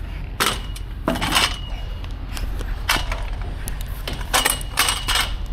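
Several sharp metallic clanks and rattles, about five in all, some followed by a brief ringing tone, over a steady low hum.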